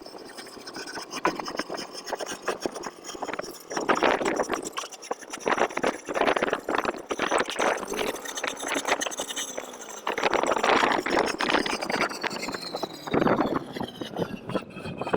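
Machinery engine running under heavy, irregular clattering and rattling, with a high whine that slowly falls in pitch near the end.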